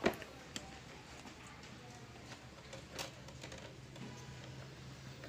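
Faint, sparse plastic clicks and light knocks from rice cooker lid parts being handled and fitted together, the loudest right at the start and about three seconds in, over a faint steady low hum.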